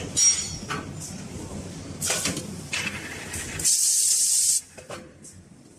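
Automatic bowl filling and sealing machine running, its pneumatic cylinders and valves letting out short hisses of compressed air over a low machine rumble. One longer, louder hiss comes just before the middle and cuts off suddenly, after which the machine sound drops much quieter.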